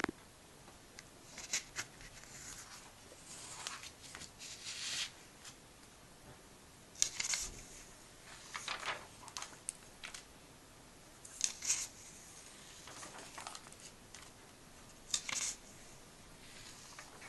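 Glossy comic-book pages being opened and turned by hand: paper rustling and swishing in several short bursts a few seconds apart.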